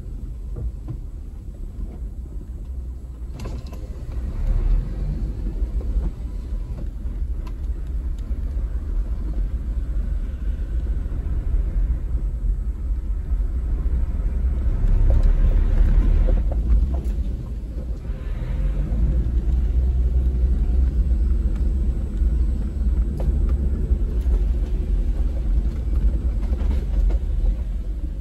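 Toyota Land Cruiser 70 engine and drivetrain running as it drives along a rough dirt track, heard from inside the cab as a steady low rumble. The rumble grows louder a few seconds in, is loudest about halfway through, eases briefly and then steadies.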